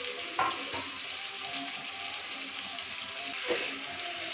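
Marinated chicken and onions sizzling in hot oil in a metal kadhai, a steady frying hiss. A spatula clacks against the pan about half a second in and again about three and a half seconds in.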